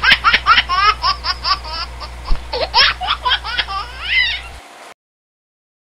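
High-pitched laughter in quick bursts, several a second, thinning out and then cutting off abruptly about five seconds in.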